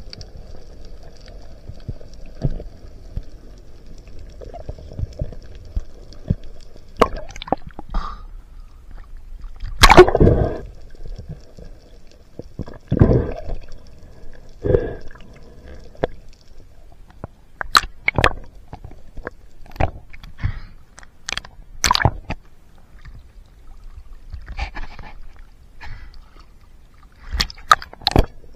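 Underwater sound on a diver's camera: a low steady wash, gurgling bubbles, and scattered sharp clicks and knocks. The loudest is a burst about ten seconds in.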